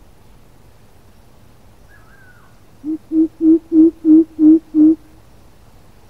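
Coucal calling a series of seven deep, even hoots, about three a second, the first one softer.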